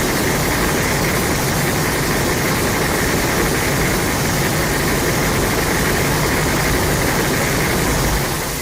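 A Godzilla movie sound effect: a loud, steady, dense noise that fills the whole range from deep bass to hiss, holding level and then fading out near the end.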